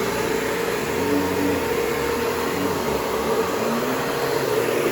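Vacuum cleaner running steadily: a steady motor whine over rushing air.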